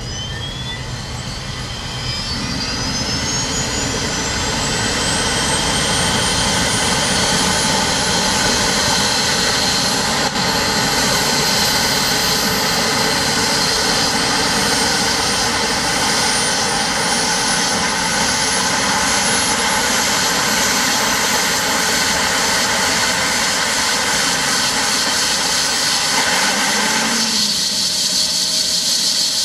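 Bell 429 helicopter's turbine engines starting up as the main rotor spins up: a high turbine whine climbs steadily in pitch, growing louder over the first few seconds and then holding steady. There is a single click about ten seconds in, and the tone changes shortly before the end.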